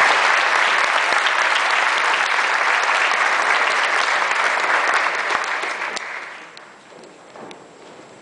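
Audience applauding, a dense sustained clapping that dies away about six seconds in.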